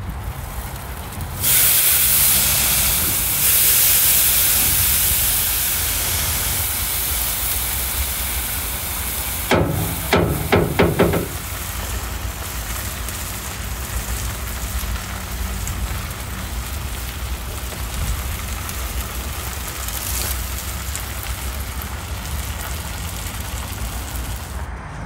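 Burger patties and their juices sizzling on a hot smoker grate: a loud hiss comes in suddenly about a second and a half in and slowly fades. A quick run of ringing metallic knocks sounds about ten seconds in.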